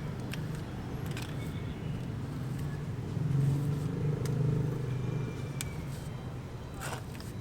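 A steady low motor hum that swells about three seconds in and eases off again by five seconds, with a few light clicks or taps over it.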